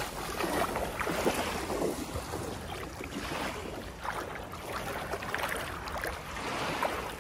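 Legs wading through shallow seawater, with a splash at each stride, the splashes rising and fading about once a second.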